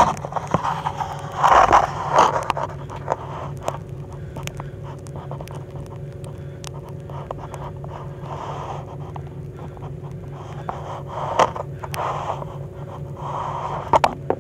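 A person breathing hard, with scraping and light clicks, while moving over a suspended ceiling's metal grid and tiles, over a steady low hum.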